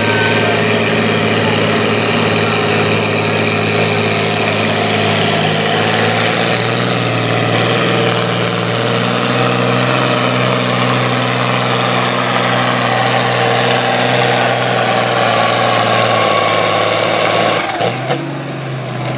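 A diesel farm tractor engine running hard at high revs under load during a tractor pull, with a high whistle rising above it. The pitch shifts slightly about halfway through, then the engine note drops off sharply near the end.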